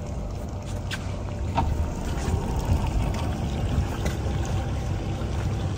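Steady low rumble and hiss aboard a boat on the water, with a couple of faint short clicks about a second in.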